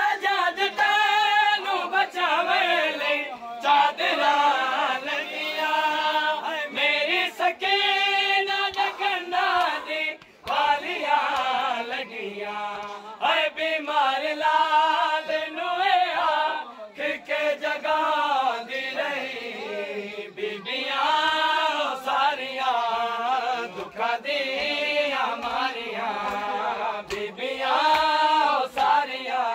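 Men's voices chanting a Punjabi noha, a Muharram mourning lament, in long phrases that rise and fall with short breaks between them.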